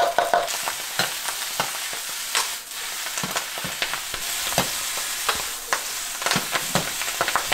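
Garlic and leafy greens stir-frying in a hot wok: a steady sizzle with repeated clinks and scrapes of a metal ladle against the pan.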